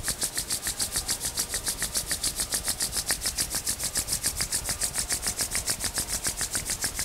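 Palms being rubbed briskly together, a fast, even swishing of skin on skin at about six strokes a second.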